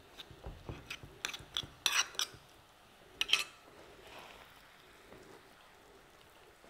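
Light clicks and taps of chopped walnuts being gathered by hand off a wooden cutting board and dropped into a bowl of mashed avocado. The taps come in a loose cluster over the first three seconds or so, the sharpest about three seconds in.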